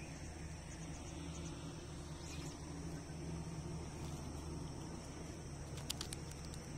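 Outdoor ambience of steady insect chirring over a low steady hum, with a few sharp clicks about six seconds in.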